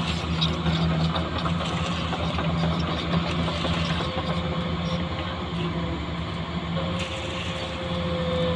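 Construction vehicle engine running steadily at a low hum, with a faint thin whine joining about halfway through.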